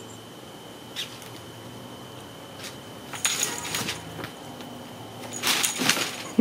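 Kittens batting at a dangling feather toy and the fabric play tent: a short click about a second in, then two bursts of rustling and rattling.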